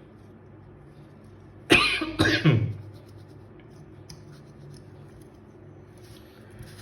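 A man coughing, two loud coughs in quick succession about two seconds in.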